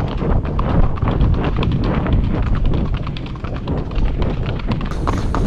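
Hoofbeats of horses moving at speed on a dirt track, a quick run of strikes, with wind rumbling on the microphone.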